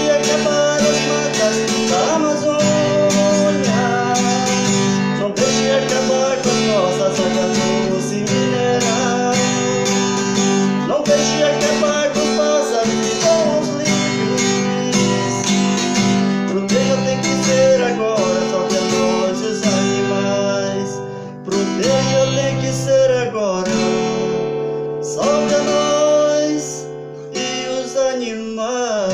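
Instrumental acoustic guitar music: strummed chords under a bending lead melody, with the song's singing ended. The music dips briefly twice in the second half.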